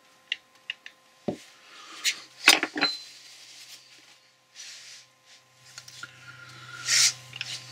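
Steel gears and shafts of a Boxford lathe's lead screw gearbox clinking and knocking against each other and the casing as they are fitted by hand. A few light clicks come first, then a louder clatter about two and a half seconds in, one knock leaving a short metallic ring.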